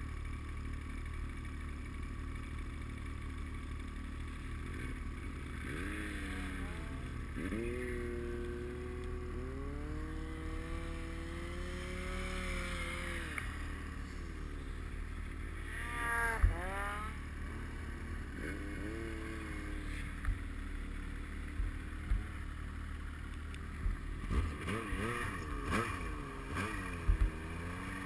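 Yamaha Nytro snowmobile's four-stroke three-cylinder engine revving up and easing off repeatedly while riding through powder, with one long pull held for several seconds and quicker swings near the end, over a steady low rumble and a few knocks from the sled over bumps.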